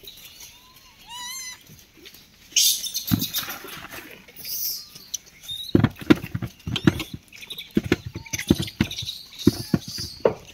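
Rhesus macaques feeding on mango on a gravel road: irregular clicks and scuffs of handling and movement, with a short warbling call about a second in.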